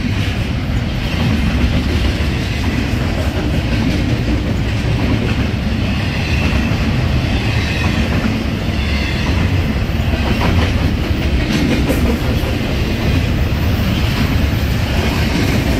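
Intermodal stack freight train cars rolling steadily past close by, a continuous heavy noise of steel wheels on the rails.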